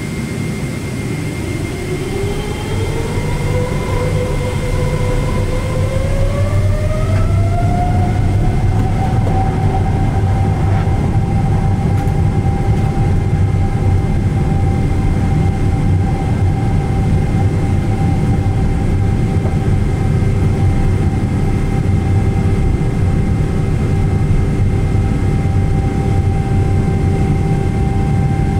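Boeing 777-300ER's GE90-115B turbofan spooling up to full takeoff thrust, heard from inside the cabin: a whine that climbs in two steps over the first eight seconds or so, then holds steady over a loud low rumble through the takeoff roll.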